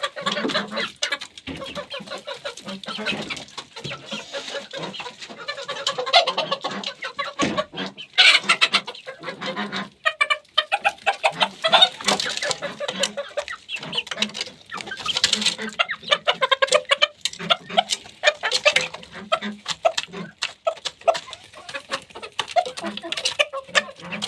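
Chickens clucking steadily while they eat, with many quick sharp taps of beaks pecking at feed between the calls.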